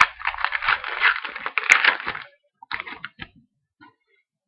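Trading card pack wrapper being torn open and crinkled in the hands: a dense crackling rustle for about two seconds, then a few light clicks and rustles of the cards being handled.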